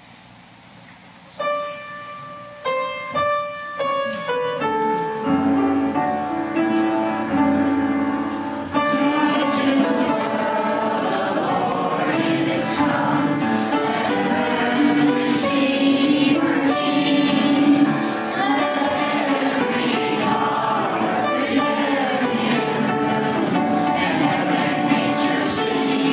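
A piano plays a few separate chords to introduce a song, then settles into a steady accompaniment. About nine seconds in, a group of children starts singing along with it.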